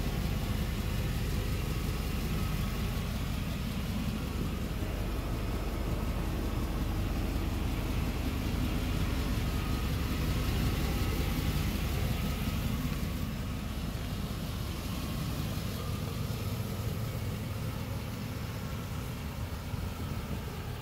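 1992 Cadillac Brougham's V8 engine idling steadily, a low even rumble.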